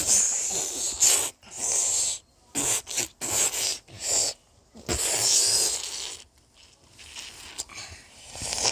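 Harsh, hissing growls made by a person's mouth as a monster's attack noises: a string of about eight short rasping bursts over the first six seconds, then quieter rustling of plush toys.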